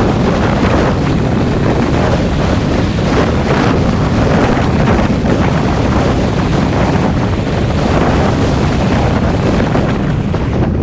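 Loud, steady wind noise buffeting the camera microphone on a moving motorcycle.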